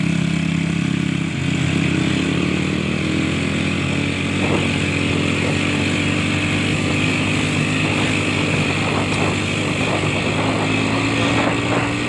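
A vehicle engine running steadily at a fairly constant speed, with some light ticks and clatter over it.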